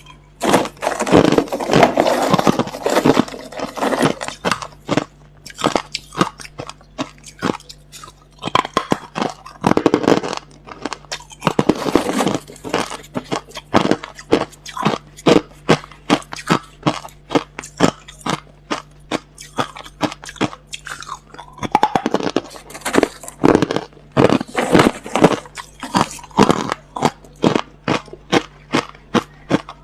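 Close-up crunching of clear, hard crushed ice being bitten and chewed, with dense flurries of cracking as fresh mouthfuls are taken (about a second in, around ten seconds in, and about twenty-two seconds in) and a steady run of regular crunches, roughly two a second, between them.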